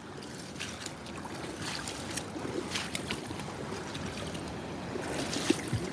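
Rubber boots wading through shallow floodwater and flattened weeds: continuous sloshing with irregular splashes and rustles.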